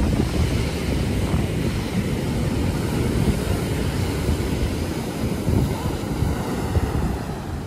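Waves breaking and washing up a sandy beach, mixed with wind buffeting the microphone in a steady, gusty rumble.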